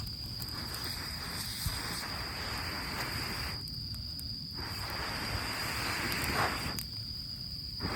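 Someone blowing on a struggling campfire of rain-wet wood in long, steady breaths, the rushing air pausing twice for an inhale. A steady high insect trill runs underneath.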